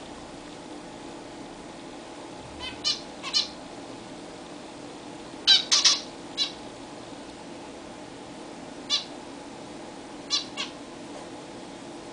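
Zebra finches giving short calls, singly and in quick clusters of two or three, about ten in all, loudest a little before halfway.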